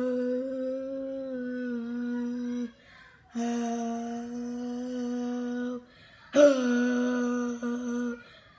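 A girl singing three long held notes at one steady pitch straight into a margarita glass, trying to make it shatter with her voice. The third note starts louder with a brief scoop into the pitch.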